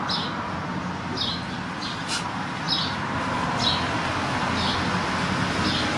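Short, high chirps from a small animal, repeating about once a second over a steady background hum.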